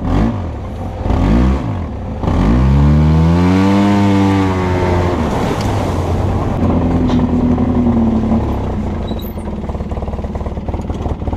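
Off-road vehicle's engine blipped a couple of times, then revved hard for about three seconds, its pitch climbing and falling back, before running on more steadily.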